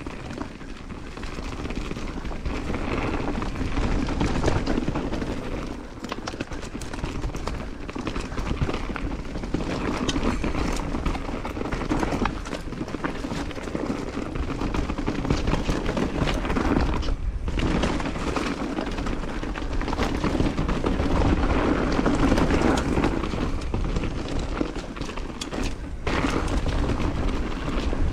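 Mountain bike being ridden down a dirt trail: a continuous rumble of tyres and the bike rattling, with frequent knocks over bumps, and a couple of brief lulls.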